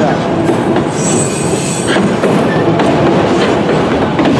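Freight train of autorack cars rolling past close by: a steady rumble of steel wheels on the rails, with a high wheel squeal about a second in.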